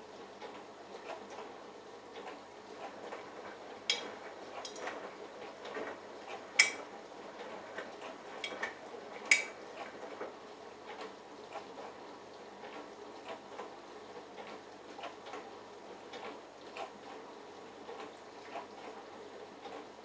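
Bosch Logixx WAS32461 front-loading washing machine tumbling its load through water in the prewash, with a steady wash of sound and a run of light clicks and clinks. A few sharper clinks stand out in the first half.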